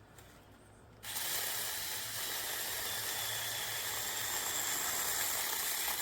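Battery-powered mini chainsaw switching on about a second in, running steadily with a high whine for about five seconds, then stopping suddenly.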